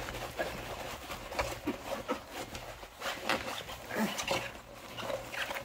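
Diamond painting canvas rustling and crinkling as it is rolled backwards by hand to flatten it: an irregular scatter of soft crackles and rubbing.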